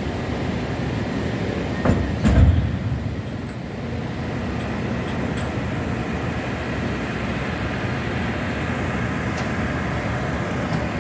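Steady rumble of deck machinery on a working ship, with two heavy metallic knocks about two seconds in.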